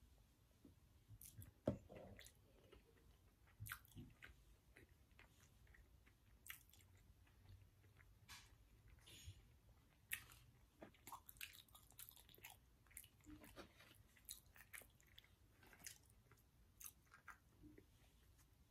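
Faint close-up eating sounds: soft chewing and small mouth clicks, scattered through, with one sharper knock about two seconds in.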